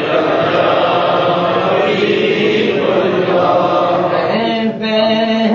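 Unaccompanied devotional chanting of an Urdu naat: several voices chanting together in a dense, continuous sound. About four seconds in, a single man's voice comes through clearly on a long held note.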